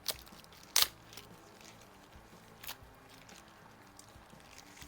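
A few sharp clicks and knocks from small parts and their packaging being handled, the loudest a little under a second in and a softer one near three seconds.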